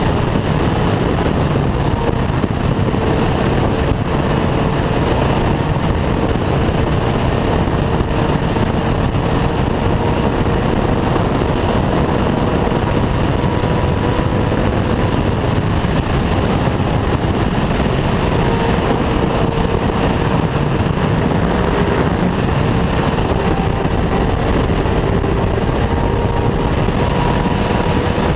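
Motorcycle cruising at steady highway speed: a heavy rush of wind and road noise over the microphone, with a steady engine note underneath that drifts slightly in pitch.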